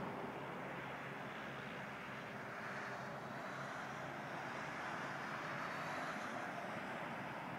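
Piper J3 Cub's engine droning steadily in the distance as the plane climbs away, heard under a steady rushing noise.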